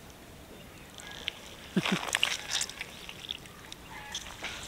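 Hands digging in wet pond-edge mud while feeling for an eel: wet squelching, sloshing and crackling that starts about two seconds in and goes on in irregular bursts, with one short low call dropping in pitch at the start of it.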